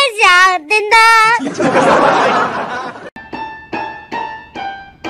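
A high sung voice with strong vibrato for about the first second and a half, then a short rush of noise. From about three seconds in, single notes on an electronic keyboard, about two or three a second, each dying away, as a dog paws the keys.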